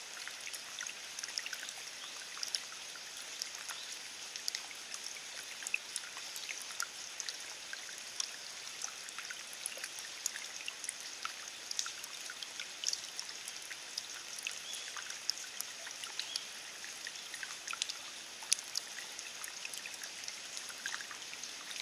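Steady rain falling on grass and wet ground: an even hiss with many small, sharp drop ticks scattered through it.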